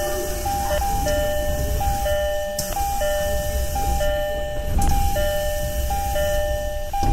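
Japanese commuter train door chime: a two-note high-then-low chime repeating about once a second, over the low rumble of the train. A knock sounds about five seconds in.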